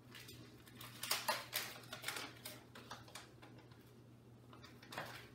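Plastic food packaging crinkling and rustling as it is handled, in a dense run of crackles over about three seconds, then one more brief rustle near the end.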